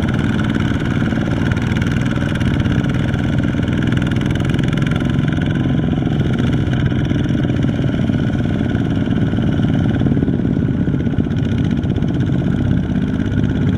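Several two-wheel walking tractors with Kubota ZT140 single-cylinder diesel engines running steadily under load as they haul rice-laden trailers through deep mud.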